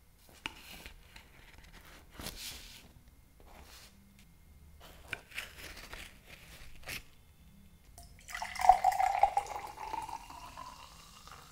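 Light clicks and crinkles as metal tongs set baked empanadas down on a plate; then, about eight seconds in, a drink is poured into a glass, the pour the loudest sound, its pitch rising as the glass fills.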